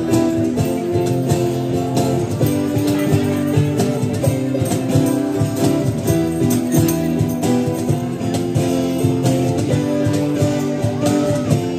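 Acoustic band playing through a PA sound system: strummed acoustic guitar over a bass guitar, with no drums.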